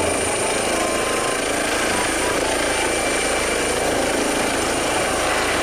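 Toy helicopter sound effect: steady rushing helicopter-rotor noise with a thin, high steady whine.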